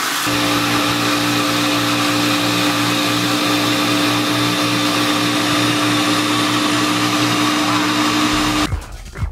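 Ninja Ultima 1500-watt blender motor running at high speed, its blades grinding roasted peanuts into meal, a loud steady whine over a rushing noise. It cuts off near the end.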